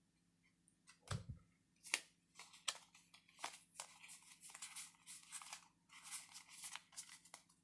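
Faint handling of Magic: The Gathering cards and booster-pack packaging: a few separate sharp ticks, then scratchy rustling that runs on through the second half.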